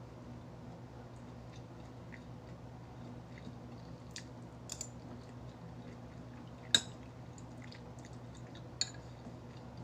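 Eating sounds: a few short clinks of a utensil against a dish or bowl, the loudest about two-thirds of the way through, over a steady low hum.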